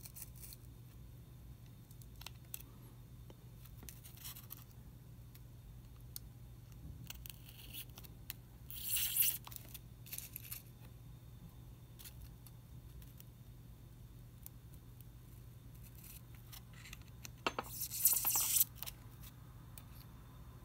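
Handling sounds from working pins and paper strips on a styrofoam pinning block: scattered faint clicks and two short rasping scrapes, about nine seconds in and again near eighteen seconds, over a low steady hum.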